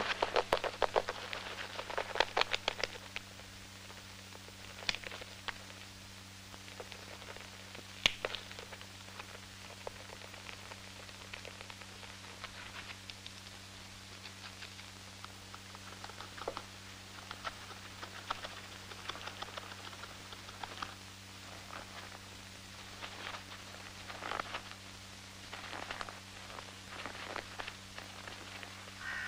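Red squirrel gnawing and cracking a nut: bursts of rapid dry clicks and crunches, densest at the start and again through the second half, over a steady low hum.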